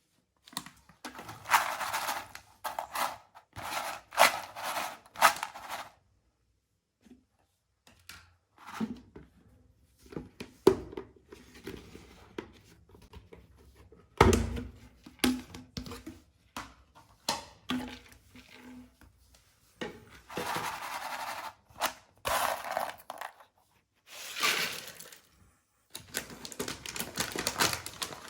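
Plastic snack packets crinkling and being torn open, in irregular bursts, with one heavy thump about halfway through.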